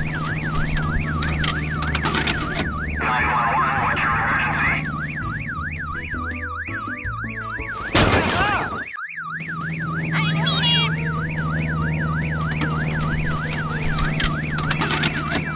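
Fast warbling emergency-vehicle siren, rising and falling about four times a second over a steady low hum. About eight seconds in, a loud whoosh lasting about a second briefly cuts it.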